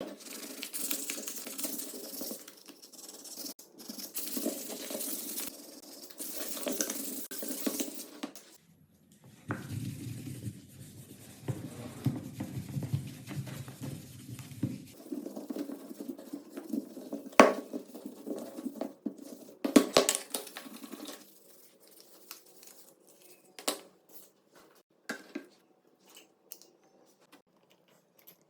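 Hand work on metal shotgun parts: rubbing and scraping for several seconds, then metal parts handled with sharp clicks and clinks, trailing off into a few light taps.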